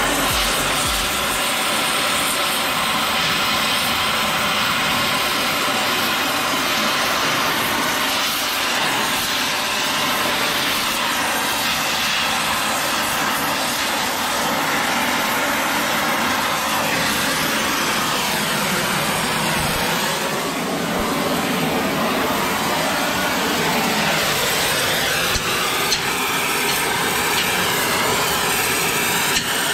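Oxy-acetylene welding torch burning with a steady hiss while gas-welding steel.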